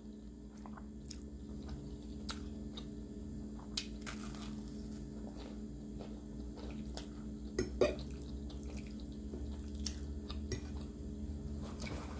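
A person chewing a mouthful of spaghetti, with scattered wet mouth clicks and smacks and a louder click about eight seconds in, over a steady low hum.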